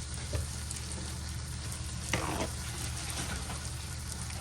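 Turkey bacon sizzling and crackling in a frying pan, a steady hiss dotted with small pops. A brief louder noise cuts in about two seconds in.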